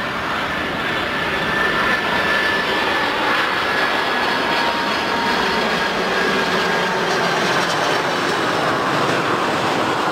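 Airbus A310 jet airliner on final approach with its landing gear down, flying past: a steady jet engine rumble and rush with faint whining tones that drift slowly lower in pitch as it goes by.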